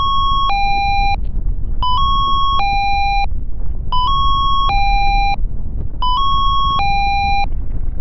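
Synthesized emergency alert chime: a three-note figure of a short tone, a longer slightly higher tone, then a lower tone, repeated four times about every two seconds over a steady low rumble.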